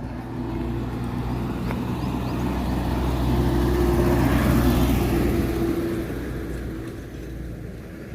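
A motor vehicle drives past, its engine and tyre noise growing louder to a peak midway and then fading away.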